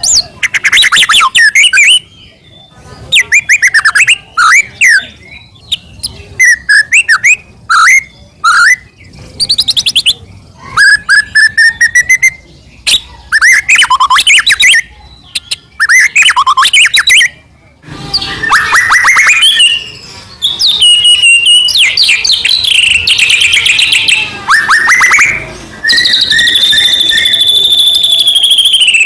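White-rumped shama (murai batu) singing loudly in full song: a varied run of quick chirps, trills and slurred whistles in short phrases with brief pauses. Past the halfway point the song becomes almost unbroken, and near the end it holds one long whistle.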